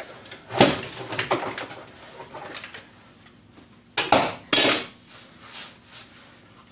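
Hard knocks and clatter of the hand brace and auger bit being handled on the wooden workbench right after the bit has bored through: two sharp knocks about a second in and two louder ones about four seconds in.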